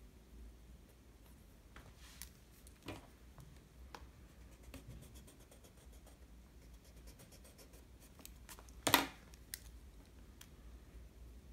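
Pilot Super Grip 0.5 mechanical pencil drawing on sketchbook paper: faint scratching strokes with a few light taps. About nine seconds in there is one sharp knock, the loudest sound, as a pen is laid down on the wooden desk.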